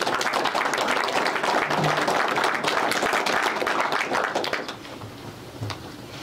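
Audience applauding, the clapping dying away after about four and a half seconds.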